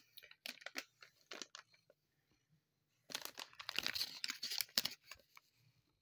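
Plastic cat-treat pouch (GimCat Fishy Snacks) crinkling as it is handled: scattered crackles at first, then a dense burst of crinkling from about three seconds in that lasts about two seconds.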